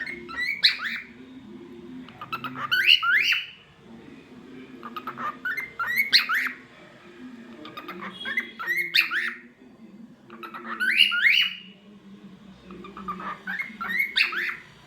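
Lutino cockatiel calling in short clusters of quick rising chirps and squawks, a cluster about every two to three seconds, six times.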